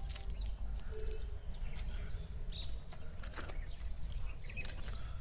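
Wind rumbling on the microphone, with birds chirping: short high calls scattered throughout and a high whistled call near the end.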